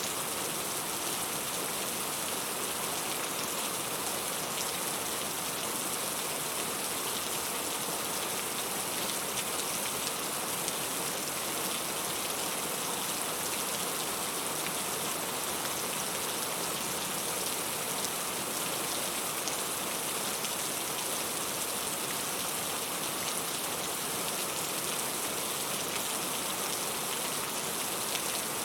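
Steady rain falling, a dense even hiss with faint scattered drop ticks, unchanging throughout.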